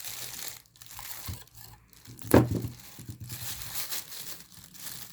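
Thin plastic bag crinkling as it is handled and taped down over paper, with one sharper, louder crackle a little over two seconds in.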